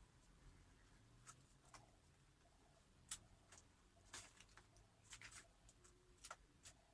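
Faint, scattered small clicks and taps of hands handling cardboard, about ten in all, a few a little louder, at irregular intervals.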